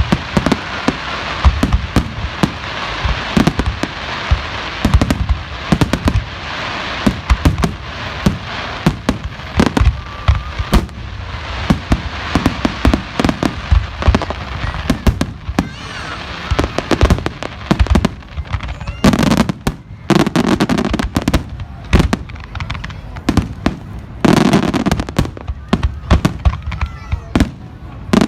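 Fireworks display: a dense, continuous barrage of sharp bangs and crackling shell bursts, many a second, with a few deeper booms near the end.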